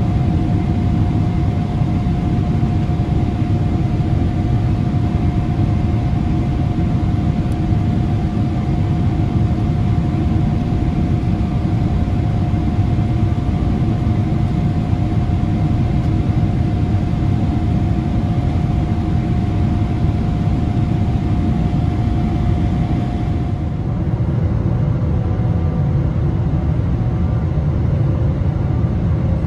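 Boeing 777 cabin noise in flight: a steady, loud low rumble of the engines and airflow with a thin steady hum. About 24 seconds in the sound changes abruptly, the hiss dropping and a different faint hum taking over, as the airliner approaches to land.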